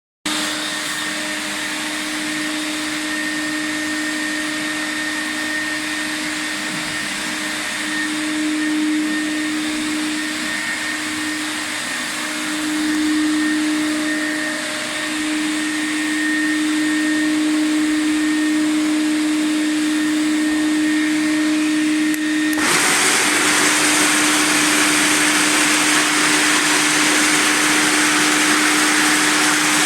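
Quadro floor sanding machine running at 600 rpm with grit-70 diamond sanding discs, coarse-sanding old parquet: a steady motor hum under a hiss. About 22 seconds in, a much louder hiss sets in suddenly and holds.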